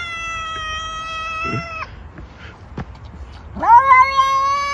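Domestic cat giving two long, drawn-out meows. The first holds a steady pitch and stops about two seconds in; the second swoops sharply up in pitch near the end and then holds.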